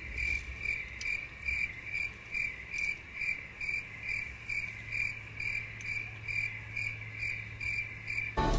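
A cricket chirping in an even rhythm of about two to three short, high chirps a second, over a faint steady low hum.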